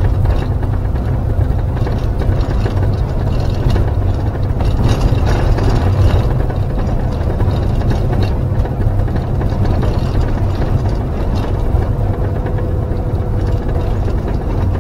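Camper van engine and road noise heard from inside the cab while driving at a steady pace, a continuous low rumble.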